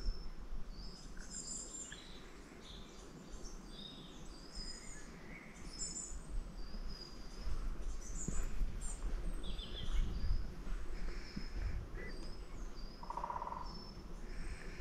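Woodland birdsong: several small birds chirping and whistling high, over a steady low background, with footsteps on the forest path from about halfway and a brief rapid rattle near the end.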